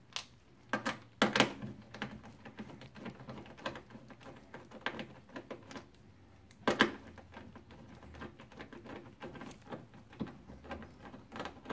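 Irregular light clicks and knocks of hands handling a refrigerator's plastic water inlet valve and its metal mounting bracket, a few sharper knocks among them, over a faint low hum.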